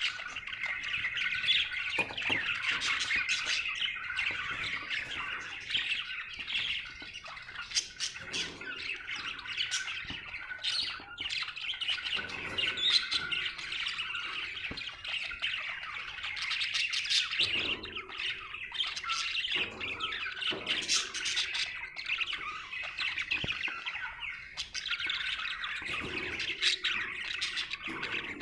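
Budgerigar chirping and warbling without a break, a fast run of chatter, squawks and clicks: the happy warble of a contented budgie.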